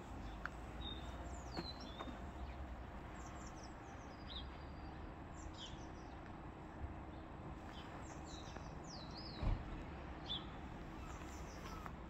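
Small birds chirping, short high notes that slide downward, scattered over a low steady background rumble. A single dull knock sounds about nine and a half seconds in.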